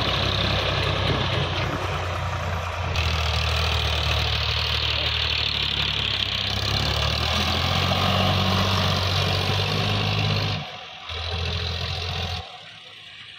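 Sonalika DI 750 tractor's diesel engine running steadily as it pulls a trailer loaded with soil. The sound changes abruptly at a few points and falls much quieter near the end.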